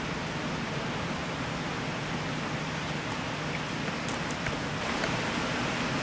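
Steady, even hiss with no distinct pitched sound, and a few faint ticks about four seconds in.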